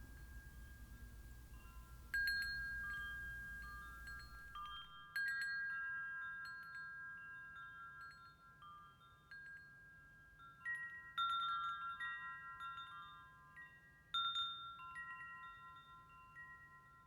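Wind chimes ringing: metal tones struck now and then, each ringing on and slowly fading, with clusters of strikes about 2, 5, 11 and 14 seconds in. A low rumble underneath stops about five seconds in.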